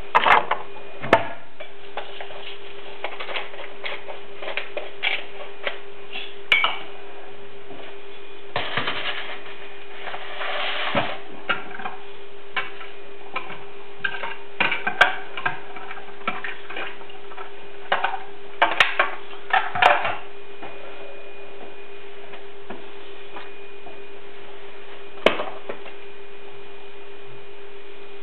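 Kitchen clatter of spice jars and bowls being handled on the counter: scattered clicks and clinks with a few short rattling stretches, busiest in the middle, over a steady electrical hum.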